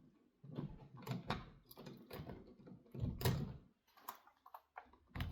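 Irregular scrapes, clicks and knocks of hands and a screwdriver working a wire onto a wall switch's terminal screw.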